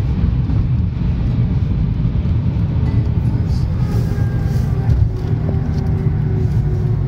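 Engine and road noise inside the cabin of a 2004 Mercedes E500 (5.0 V8) at speed: a loud, steady low rumble.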